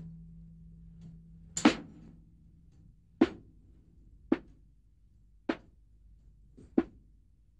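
Five sharp percussive strikes, each a single knock with a short ring, spaced irregularly about a second or a second and a half apart; the first is the loudest. A faint low hum fades out after the first strike.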